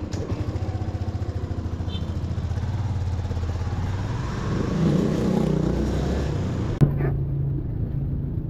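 Motorcycle engine running while riding, its note rising and getting louder about five seconds in. A sharp click comes near the end, after which the sound turns duller and steadier.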